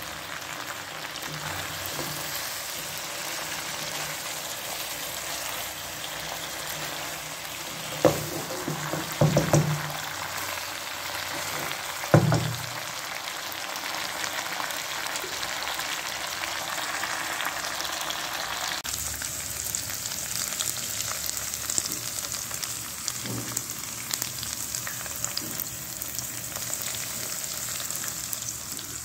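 Chicken pieces sizzling in a nonstick pan, the roasting stage of a steam roast once the steaming liquid has cooked down. A few loud knocks about eight to twelve seconds in as the pieces are turned, and the sizzle grows brighter about two-thirds of the way through.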